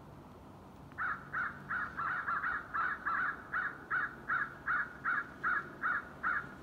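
Electronic crow call playing a fast, even run of crow caws, about three a second, starting about a second in and stopping shortly before the end.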